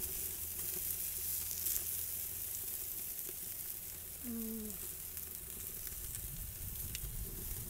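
Pork spare ribs and sausages sizzling steadily on a hot grill grate, with a few light clicks of metal tongs turning the meat. A short falling hum of a voice comes about halfway through.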